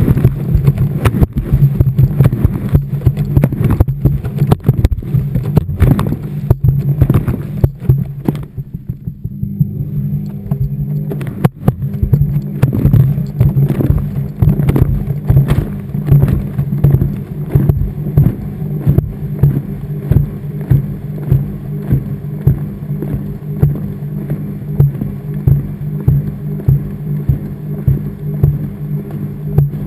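Washing machine heard from inside its drum as it turns: a steady low motor hum with laundry tumbling and thudding. It goes briefly quieter about nine seconds in, then settles into a regular thud about once a second.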